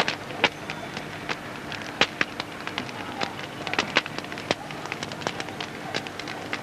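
Campfire crackling: irregular sharp pops and snaps over a steady hiss.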